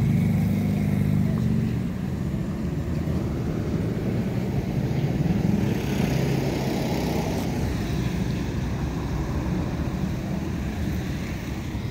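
Street traffic: a motor vehicle's engine running close by for the first couple of seconds, then a steady low traffic rumble.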